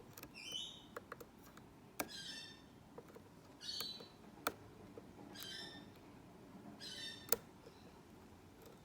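Sharp small metallic clicks of a lock pick and tension wrench working the pins of a padlock, a handful of them, the loudest near the middle and near the end. A bird chirps briefly in the background about every second and a half.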